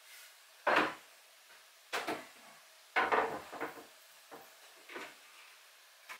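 A series of short wooden knocks and clunks, about six, from hands working inside a plywood kitchen cabinet with its doors open; the loudest come about a second in and about three seconds in.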